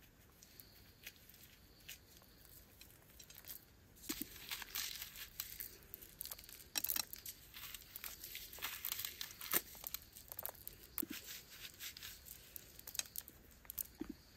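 Dried corn kernels being stripped off the cob by hand and falling onto the ground: a dense run of crackling clicks that starts about four seconds in.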